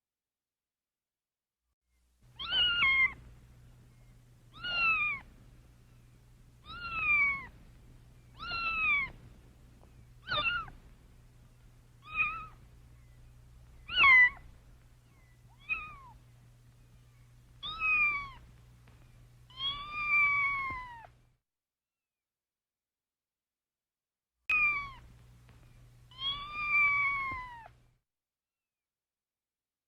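A kitten meowing again and again: about a dozen short, high calls, each falling in pitch, in two runs split by a pause of a few seconds. A faint low hum lies under the calls.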